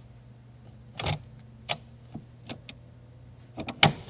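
Handbrake lever and its drift button on a 2022 Subaru BRZ being worked by hand: scattered sharp clicks about a second apart, then a quick cluster of clicks near the end.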